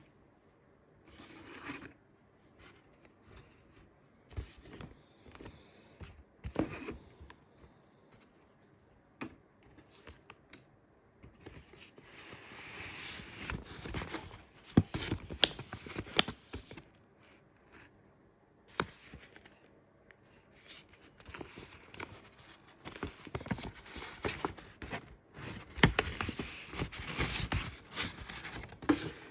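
Packaging being handled and opened by hand: irregular rustling, crinkling and tearing with sharp clicks and taps, coming in bursts that are busiest in the middle and near the end.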